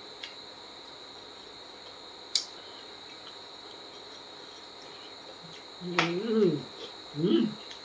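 A steady high-pitched whine or trill runs throughout. There is a single sharp click about two and a half seconds in. Near the end a man makes two short hummed vocal sounds, their pitch gliding up and down.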